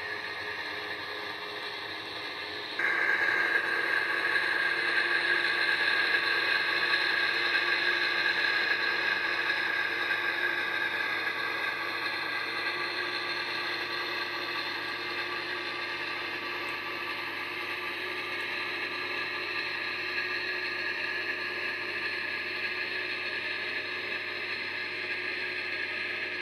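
Gauge 0 Lenz Köf model shunting locomotive running along the track: a steady mechanical whirr of its electric motor and gear drive. It becomes much louder about three seconds in.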